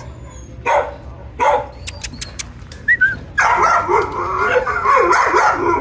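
Dogs whining and yipping: a couple of short yips in the first seconds, then from about three and a half seconds in a continuous run of overlapping high whines and yelps. A few light clicks come about two seconds in.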